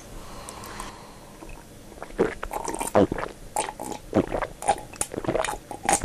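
A person drinking from a mug: a run of irregular sips and swallowing gulps, starting about two seconds in.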